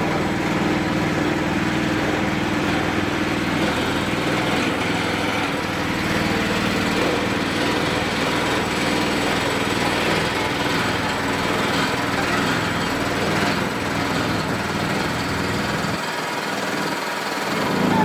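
A small engine running steadily, with a continuous rushing noise.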